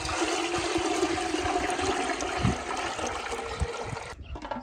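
Water pouring in a steady gush, which cuts off abruptly about four seconds in.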